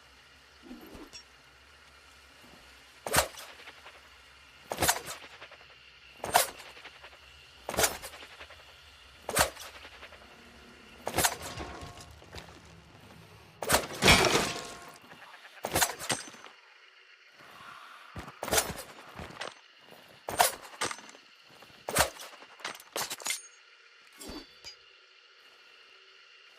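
Throwing knives striking home, a series of sharp impacts. They come about one every second and a half at first, then in closer pairs and quick clusters, with the loudest about fourteen seconds in.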